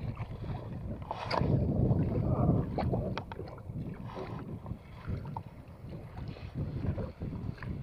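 Water sloshing and slapping against the hull of a small outrigger boat at sea, with wind buffeting the microphone. Scattered small knocks and clicks throughout, and a louder surge of water about a second in.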